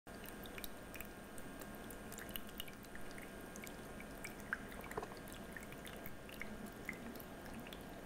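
Small tabletop seashell fountain running: water trickling down stacked shell tiers into its basin, a faint steady trickle dotted with many small drips and plinks.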